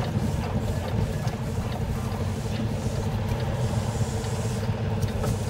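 Kenworth semi truck's diesel engine running steadily at low revs while the truck is manoeuvred at walking pace, heard from inside the cab.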